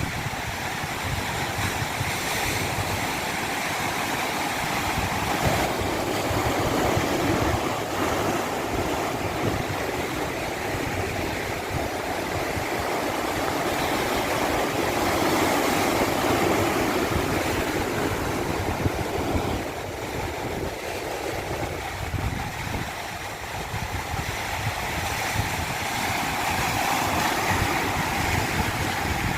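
Natural running water rushing steadily, slowly swelling and easing in strength every several seconds.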